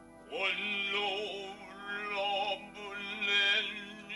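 Music: a solo voice singing in long, wavering held notes, in about three phrases, over steady sustained tones.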